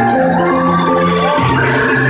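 Loud dance music with steady bass notes and a melody that slides up in pitch twice.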